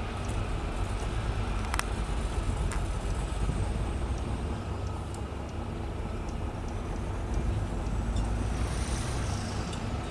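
Diesel engine of heavy road-building machinery, a motor grader or roller compactor, running steadily with a low rumble. A few sharp clicks sound over it, the clearest a little under two seconds in.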